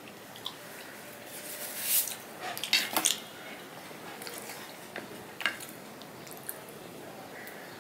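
Wet eating sounds of milk-soaked bakorkhani flatbread: chewing and squelching, with a cluster of sharp wet clicks about two to three seconds in. A steel spoon scrapes and squishes through the soggy bread in a steel bowl, giving a few lighter clicks later on.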